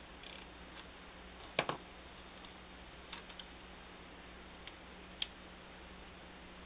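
Clicks from handling a replica Star Trek communicator: a sharp double click about one and a half seconds in, then a few fainter, scattered clicks as the prop is opened and switched on.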